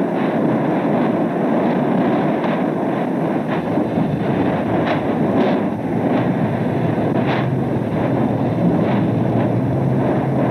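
Explosive eruption of Hekla volcano in 1947, heard on an old film soundtrack: a loud, steady rumble with several short sharp cracks around the middle, as volcanic bombs are thrown out.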